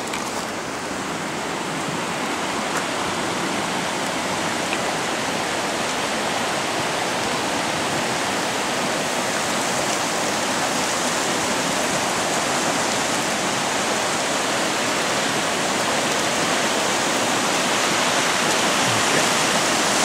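Rushing water of a river torrent in flood, a steady, even rush that grows slightly louder toward the end.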